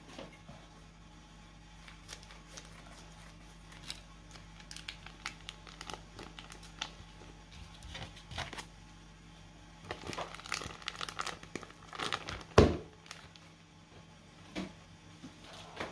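Plastic bag crinkling and crackling as a block of purple yam (ube) is worked out of it by hand. The crinkling is busiest just before a single heavy thud about twelve and a half seconds in, as the block drops into a nonstick wok.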